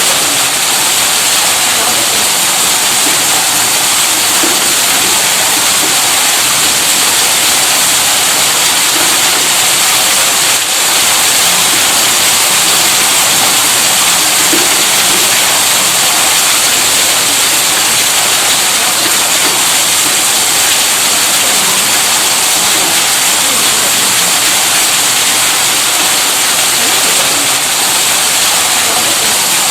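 Electric tube-well pump motor running, a steady, even rushing hiss with a brief dip about ten and a half seconds in.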